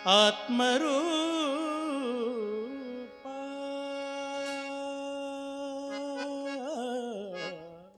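Male voice singing a long, winding melismatic phrase of a Marathi Varkari bhajan over sustained harmonium. About three seconds in, the line settles on a long held note, and it slides down near the end.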